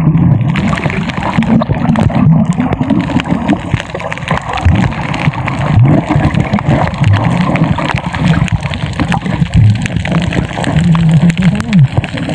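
Underwater ambience: continuous bubbling and gurgling, with low bubble sounds sliding up and down in pitch and many small clicks.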